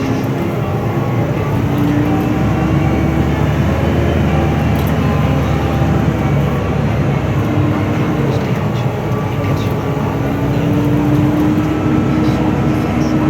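Fendt 724 Vario tractor's six-cylinder turbocharged Deutz diesel running steadily under load while pulling a six-furrow reversible plough, its hum drifting slightly up and down in pitch.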